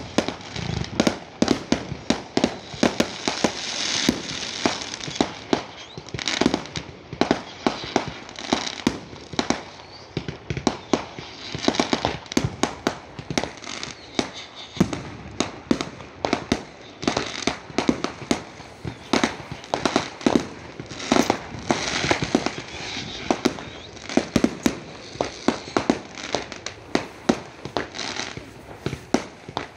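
Fireworks going off in a rapid, unbroken string of bangs, several a second, with a hiss filling the gaps between them.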